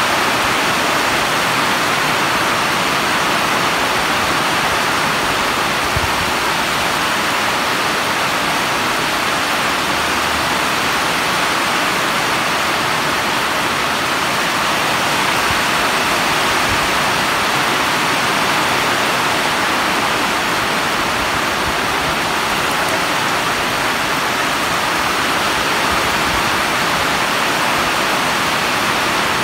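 Very heavy tropical downpour pouring onto a railway station's platform roofs and tracks: a steady, loud rush of rain.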